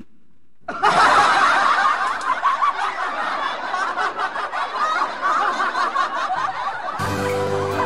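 A crowd-style burst of many voices laughing at once, dense and overlapping, that starts suddenly about a second in and gives way to music near the end.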